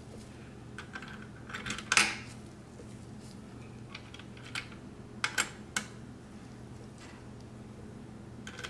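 Small metal clicks and clinks as CPU cooler mounting brackets are set down onto spacers and screws. There are a handful of sharp clicks: the loudest about two seconds in, and a quick cluster around five seconds, over a low steady hum.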